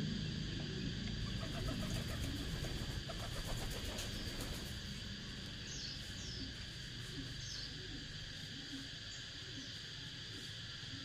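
A few short, high, falling bird chirps over a steady high-pitched drone, with a run of small clicks and rustles in the first half.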